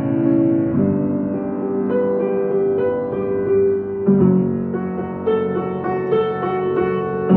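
Slow piano music: held chords with single notes sounding over them, the harmony changing about a second in and again about four seconds in.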